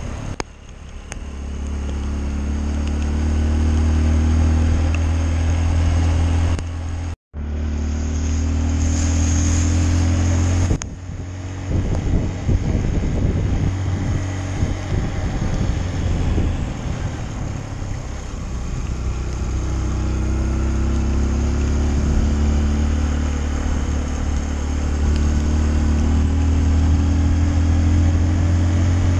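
Honda CRF150L's single-cylinder four-stroke engine running while the bike is ridden, its pitch rising slowly several times as it pulls. The sound cuts out for an instant about seven seconds in.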